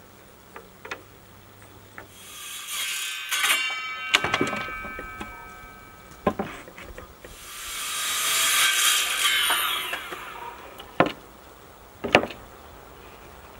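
Plywood being cut and handled: two long rushes of cutting noise that swell and fade a few seconds apart, with several sharp wooden knocks in between and two more near the end.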